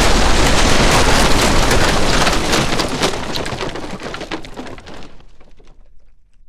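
Boom sound effect: a loud, dense blast noise with many sharp crackles that fades away steadily over about six seconds until it dies out near the end.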